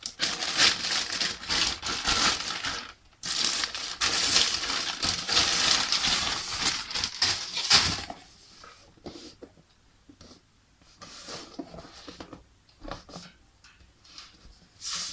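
Shipping package being torn open by hand: continuous crinkling and tearing of the packaging for about eight seconds, with a brief pause near three seconds. After that it turns quiet, with only scattered rustles and light taps of handling.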